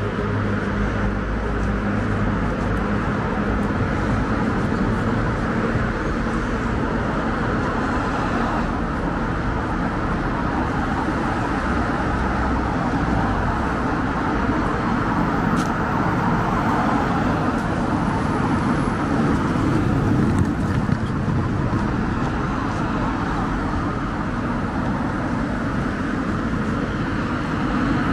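Steady city road traffic: cars driving past on a wide multi-lane street, a continuous wash of tyre and engine noise that swells slightly a little past the middle.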